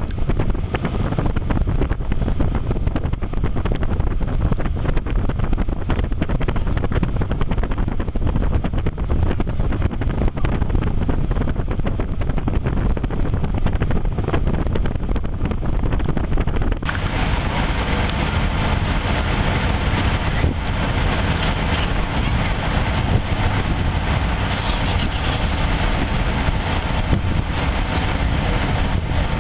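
Wind buffeting the microphone over the steady low rumble of a car ferry's engine. About halfway through, the sound changes to a fuller, steadier engine drone with a constant hum.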